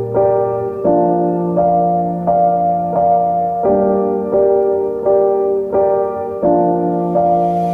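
Background piano music: a gentle keyboard melody with notes or chords struck about every 0.7 seconds.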